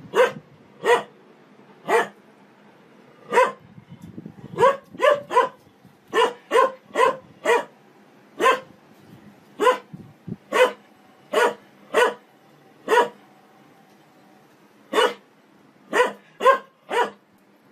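A dog barking repeatedly, about twenty short, sharp barks at a similar pitch. The barks come singly and in quick runs of two or three, with a pause of about two seconds before a last run of four.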